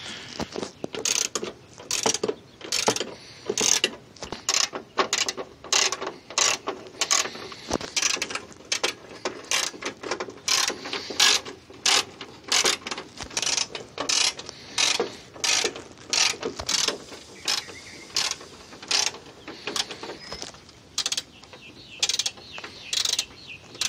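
Hand socket ratchet clicking in repeated short runs, stroke after stroke, as 10 mm nuts and bolts are backed off, with brief pauses between runs.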